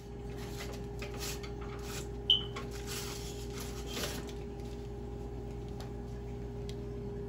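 A foil-lined baking tray of cooked bacon on a wire rack being slid out of the oven, with light scraping and rattling over a steady hum. One short, sharp high-pitched clink about two seconds in.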